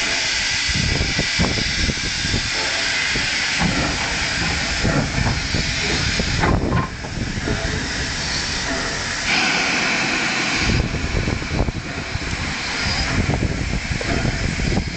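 SJ class E2 steam locomotive hissing steam continuously as it stands on a turning turntable. The hiss shifts in level a few times, dipping briefly about six and a half seconds in, over an irregular low rumbling with scattered knocks.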